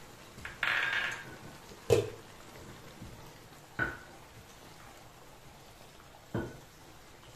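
Spatula stirring vegetables in a wok: a short scraping swish about half a second in, then three sharp knocks of the spatula against the wok, about two seconds apart, over a faint simmer of the sauce.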